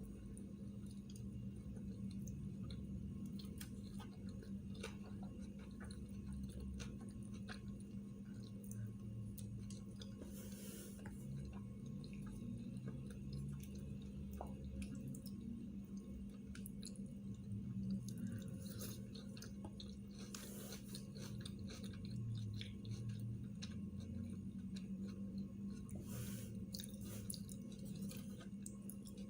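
A person chewing and eating sushi rolls, with many small scattered clicks and a few short rustling bursts, over a steady low hum.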